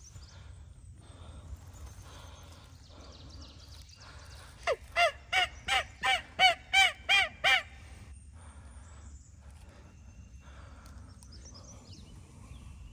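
A series of nine turkey yelps starting about five seconds in, about three a second, each a short note that rises and falls in pitch.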